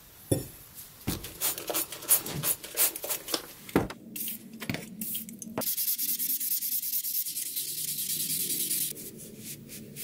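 A small abrasive block is rubbed by hand over the flat of an etched 1095 steel knife blade. It starts with short, uneven scraping strokes, then a few seconds of fast continuous scrubbing that stops shortly before the end.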